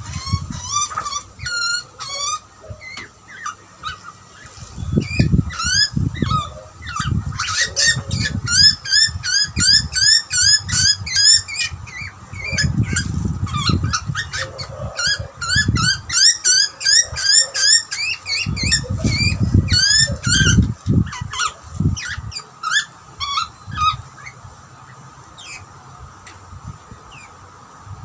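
Juvenile grey butcherbird begging for food: short, rising squeaky calls repeated several times a second, thinning out near the end. A low rumble comes and goes underneath.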